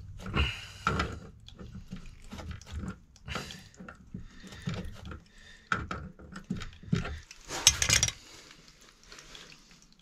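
Water-pump pliers clicking, knocking and scraping against a radiator valve as it is worked open to check flow through the microbore pipe, in irregular strokes with the loudest clatter about three-quarters of the way through, then quieter.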